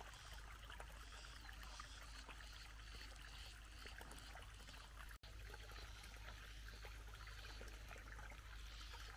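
Faint trickling water, broken by a brief dropout about five seconds in.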